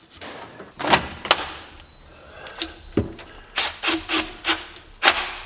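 Hand work on the engine's front cover: scattered knocks and rubbing of tools and metal parts, then a quick run of about six short strokes near the end.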